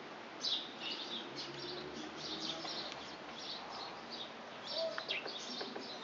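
Small birds twittering in the trees: a dense stream of short, high chirps following one another in quick succession.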